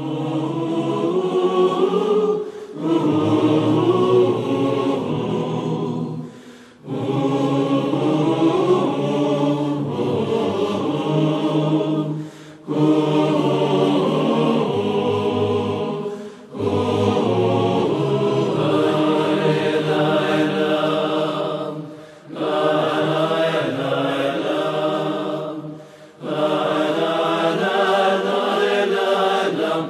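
A choir singing a slow, chant-like piece in long held phrases, with short breaks every four to six seconds.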